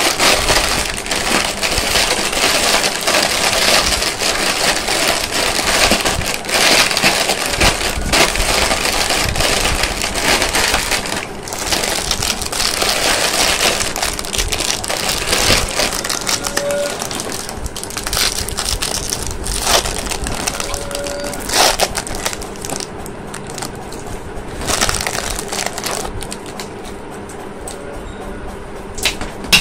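Plastic and foil candy wrappers being crinkled and torn open by hand: a dense crackling at first, thinning in the second half to scattered crackles and sharp snaps.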